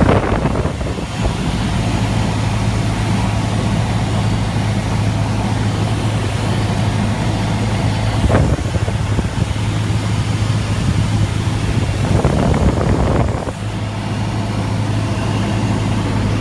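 Light airplane's piston engine and propeller droning steadily, heard inside the cabin, with a constant low hum. Brief louder rushes of noise come about eight seconds in and again around twelve to thirteen seconds.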